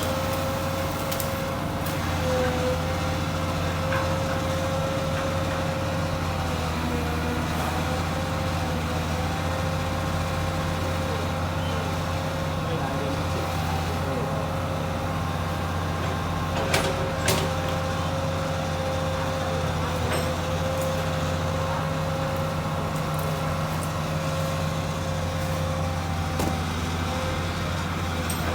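Komatsu PC200 hydraulic excavator's diesel engine running steadily, with a steady high whine over the engine drone that wavers slightly in pitch. A couple of short knocks come about two-thirds of the way through.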